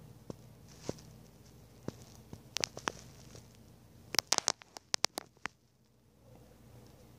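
Handling noise from a phone camera being moved: a scatter of sharp clicks and taps, with a quick run of them about four to five and a half seconds in.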